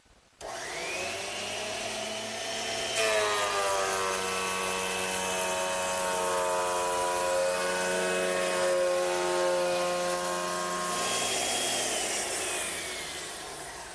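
Thickness planer motor starting with a rising whine, then a glued-up oak post blank feeding through the cutterhead for about eight seconds, a louder steady planing cut taking about a 32nd of an inch off one face. After the board clears, the motor winds down with a falling whine.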